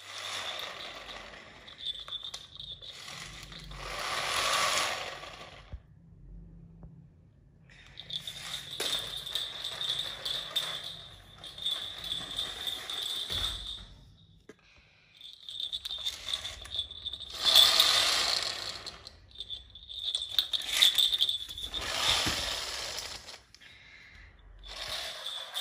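A battery-powered plastic walking toy's motor and gears whirring and rattling as it moves, with a steady high whine through much of it. It comes in several stretches broken by short pauses.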